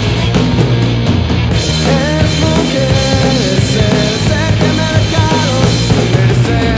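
Band-played rock song with drum kit, bass and guitars playing steadily and loud; a bending melodic lead line comes in about two seconds in.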